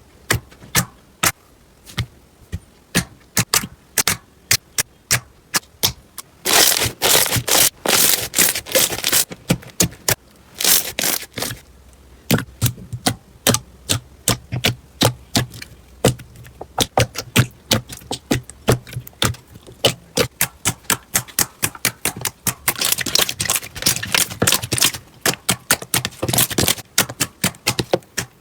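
Slime being squeezed and worked by hand, giving rapid runs of sharp clicks and crackling pops, in clusters with short pauses between.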